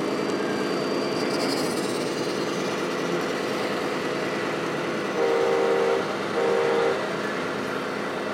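An RC model truck's sound module sounding its air horn twice, two loud blasts of under a second each a little past halfway, over a steady diesel engine drone.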